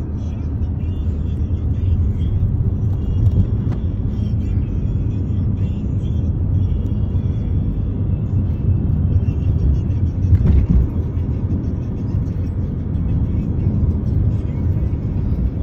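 Steady road and wind noise from inside a car moving at speed: a continuous low rumble.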